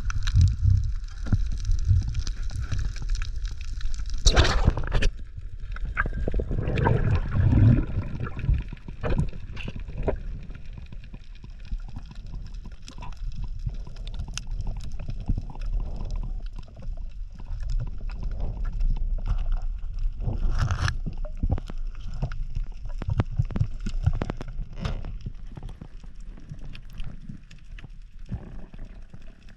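Underwater sound on a diver's head-mounted action camera: water rushing and gurgling around the housing over a low rumble, with many scattered clicks. Louder surges of water noise come about four to eight seconds in and again around twenty seconds.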